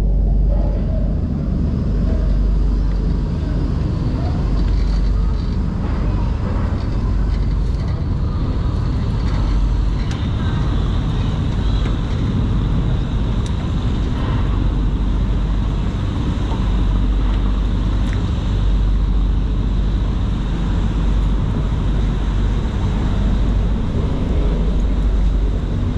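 Car ferry's engines running with a loud, steady drone and deep rumble, the noise of the lower deck while under way. A thin, steady high whine joins about ten seconds in.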